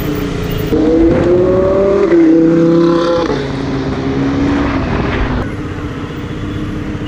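Lamborghini Huracan's V10 with a Fi aftermarket exhaust accelerating hard, its note climbing in pitch, with a step about two seconds in. A little past three seconds the pitch drops and the engine runs on at a lower, steadier note.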